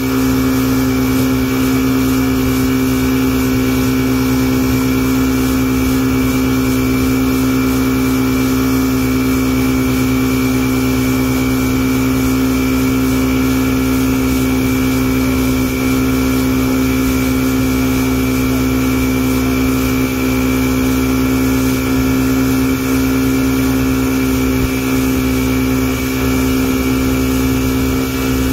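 Motorboat engine running at a steady towing speed, a constant drone that holds one pitch throughout.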